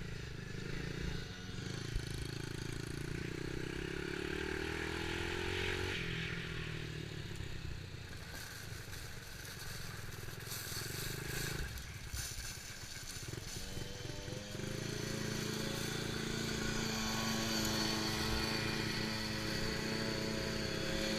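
Dirt bike engine revving up through a gear, its pitch rising for several seconds and then dropping, mixed with background music.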